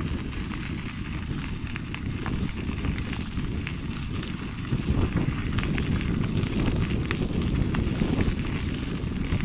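Wind buffeting the microphone of a camera carried along on a bicycle: a steady low rumble with a light crackle over it, a little louder from about five seconds in.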